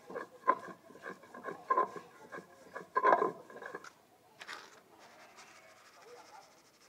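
Hand stone scraped back and forth over a flat grinding stone, crushing seeds: rough strokes about three a second, stopping about two thirds of the way through. A brief rattle follows as more seeds are tipped onto the stone.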